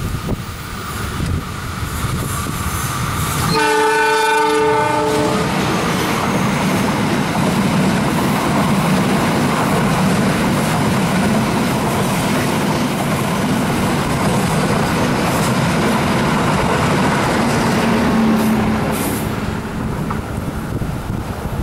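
Train horn sounding one blast of about two seconds, a few seconds in, followed by the train running past with a loud steady rumble of wheels on rail that eases off near the end.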